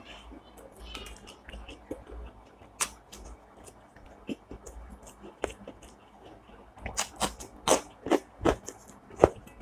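Close-miked chewing of food with the mouth. Small scattered clicks and smacks come first; then, about seven seconds in, a rhythmic run of loud chewing smacks and crunches follows, about three a second.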